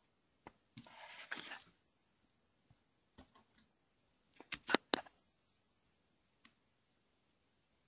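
Handling noises at a hot-staple plastic welding gun: a scraping rustle about a second in, then a quick cluster of sharp clicks a little before the middle and one more click near the end, as a corner staple is fitted into the gun's brass tips.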